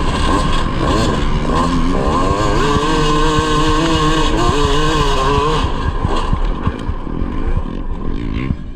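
Yamaha YZ250 two-stroke single-cylinder engine of a grass kart under way. The revs climb about a second and a half in and hold high with a wavering pitch. They drop away as the throttle comes off about six seconds in.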